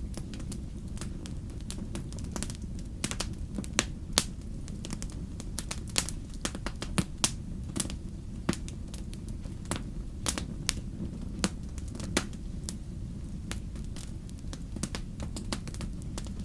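Campfire burning, with irregular sharp crackles and pops of the burning wood over a steady low rumble; a handful of snaps stand out louder than the rest.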